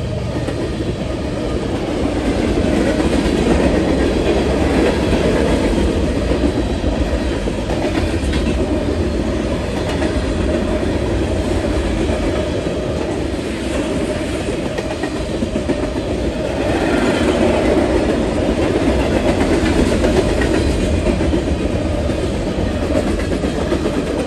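Mixed freight train cars (tank cars, flatcars and boxcars) rolling steadily past at close range, their steel wheels running on the rails.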